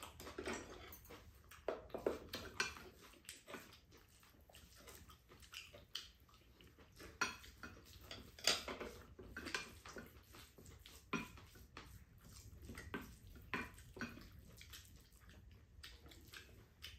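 Spoons scraping and clinking against ceramic rice bowls while two people eat, in irregular light clicks and scrapes.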